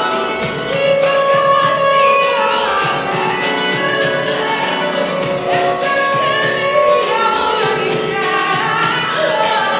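Music with a female voice singing a melody over instrumental accompaniment.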